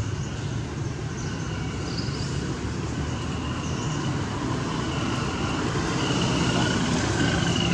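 Steady low hum of motor traffic that grows a little louder toward the end, with faint high thin tones and chirps over it.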